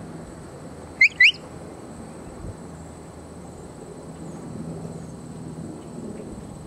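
Two short rising whistle notes a quarter second apart, loud and close: a stock-dog handler's whistle signal to a Border Collie working cattle. A steady low hum runs underneath.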